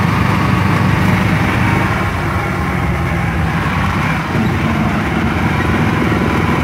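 Motorcycle engine of a three-wheeled mototaxi running steadily as it drives along, heard from inside its canvas-covered passenger cab.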